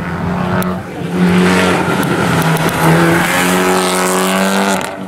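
Rally car engine running hard at high revs, its pitch stepping up and down, with a short dip just before the end like a gear change.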